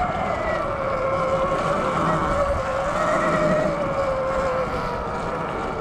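Sur Ron LBX electric dirt bike riding along, its motor and drivetrain whining with a pitch that wavers and drifts slightly lower, over a steady rush of tyre and wind noise.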